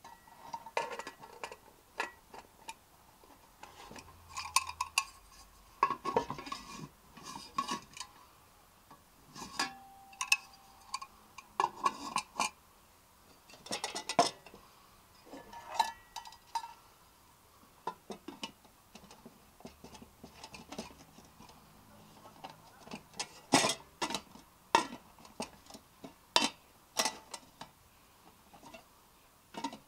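Swedish army mess kit tins and lids, aluminium and stainless steel, clinking, knocking and scraping against each other as they are handled, pulled apart and set down on a wooden table. Irregular clanks with a brief metallic ring, the loudest ones in the second half.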